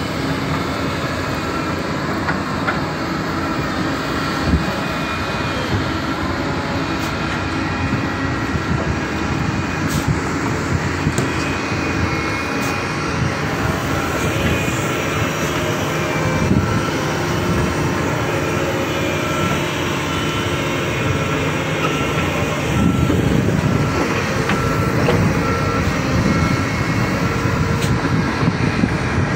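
Diesel engines of hydraulic excavators working, a steady drone.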